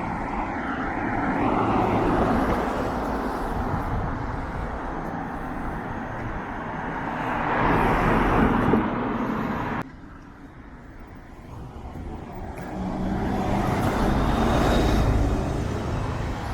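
Street traffic, with cars passing close by, swelling and fading twice. The sound drops away suddenly about ten seconds in before the next car builds up.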